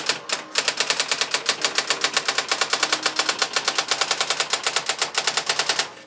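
Brother SX-4000 electronic typewriter printing by itself: its daisy wheel strikes in a fast, even run of about ten characters a second, stopping just before the end.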